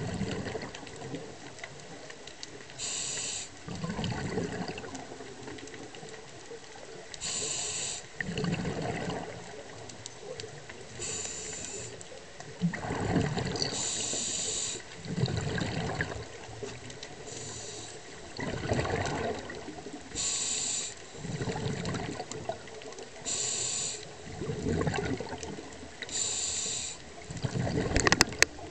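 Scuba diver breathing through a regulator: a short hiss from the demand valve on each inhale, then a longer burst of exhaled bubbles, in a steady cycle about every three to four seconds.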